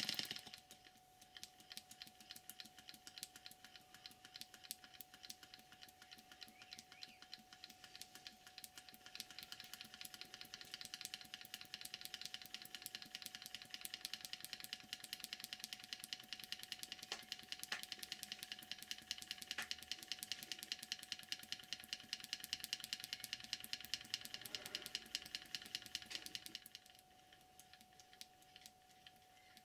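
Stuart Models 10H single-cylinder horizontal model steam engine, freshly oiled, running on compressed air with a rapid, light, even beat. The beat grows louder about ten seconds in and drops away near the end.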